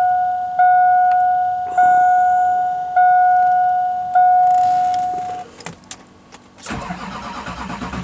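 Dashboard warning chime dinging five times, the last ding ringing on longer, stopping about five and a half seconds in. About a second later the starter begins cranking the cold 6.6-litre Duramax V8 diesel for a cold start after the glow-plug wait.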